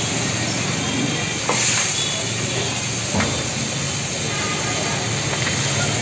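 Chilli chicken and peppers sizzling in a hot steel wok over a gas burner: a steady hiss.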